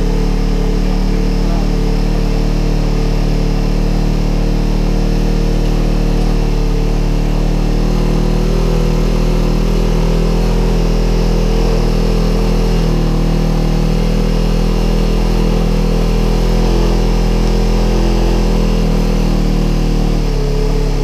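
Polaris RZR XP 1000 side-by-side's twin-cylinder engine running at a steady pace while driving along a dirt trail, heard from inside the open cab; the machine is brand new and on its break-in ride.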